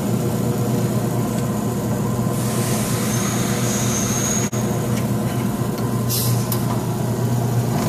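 PHI 2CPV pneumatic end finishing machine running with a steady hum. A hiss of air comes in at about two and a half seconds and lasts about two seconds, and a short sharp burst of air hisses a little after six seconds as the spindle moves forward and the pneumatic clamp jaws close.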